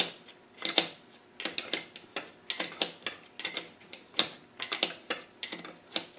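Irregular metallic clicks and clinks, several a second and often in small clusters, as hand tools and small parts are handled at the top of a gearbox casing.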